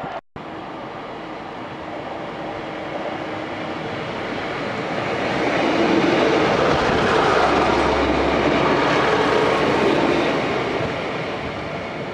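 A diesel multiple-unit passenger train running past close by along the platform. Its engine and wheel noise grows louder, is loudest for a few seconds in the middle, then fades away. The sound cuts out for a moment just after the start.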